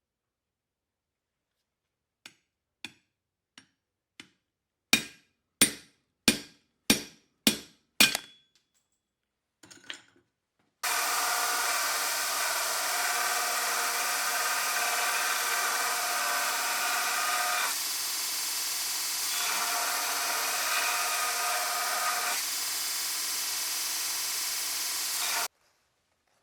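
Cross peen hammer striking hot steel on an anvil: a few light taps, then six hard ringing blows about half a second apart. Then a power tool runs steadily for about fifteen seconds.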